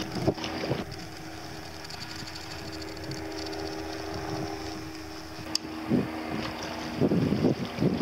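Helicopter in flight: a steady droning hum with a thin high whine over it. Wind buffets the microphone in gusts near the end.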